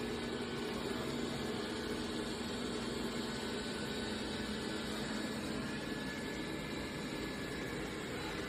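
Dreame L10s Ultra robot vacuum running: a steady motor hum with a low tone and an even hiss.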